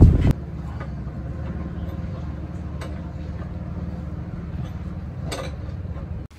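A steady low mechanical hum, like a running machine, with two faint ticks partway through; it cuts off abruptly near the end.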